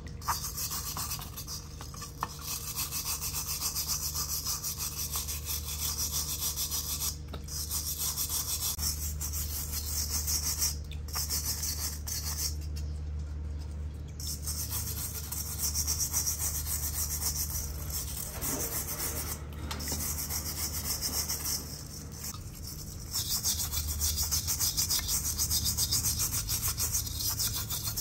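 A small stiff brush scrubbing a rusty perforated metal grille from a radio cassette player, wet with cleaning solution, in quick back-and-forth strokes with a few short pauses.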